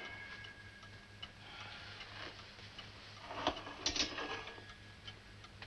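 A clock ticking faintly over a low steady hum, with a couple of light knocks about three and a half seconds in.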